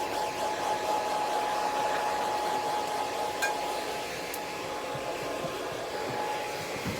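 Hair dryer blowing steadily, drying a miniature dachshund's coat, with a steady high whine running through its airflow noise and two faint clicks in the middle.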